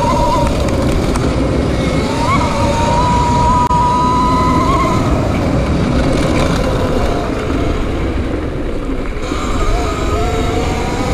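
E-Ride Pro SS electric bike motor whining as it rides, its pitch rising and falling slightly with speed, over a steady loud low rumble.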